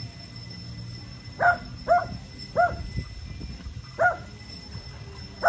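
Small dog barking: five short, sharp barks, the first three in quick succession and two more spaced further apart.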